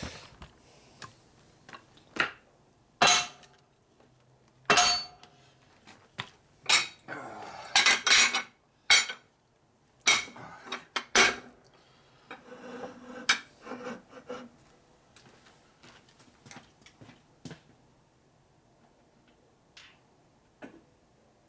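Steel tools and engine parts clanking and clinking at a workbench: about a dozen separate knocks, a few of them ringing briefly, with scraping and shuffling in between, as a flywheel is set up in a press and a wrench is fitted to its main nut.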